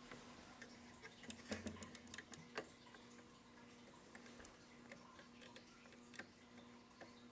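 Faint, irregular small plastic clicks from the Lego mechanism being handled, with a quick run of them about a second and a half to two and a half seconds in, over a steady low hum.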